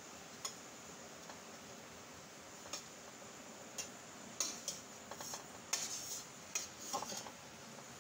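Slotted metal spatula and knife clicking and clinking against a stainless steel frying pan while bread rolls are turned over: scattered light clicks, a few in the first half and coming thicker from about halfway through.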